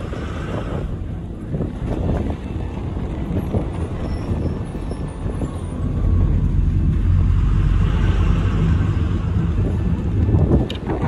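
Engine and road rumble of a moving vehicle heard from inside, a steady low drone that grows louder about six seconds in.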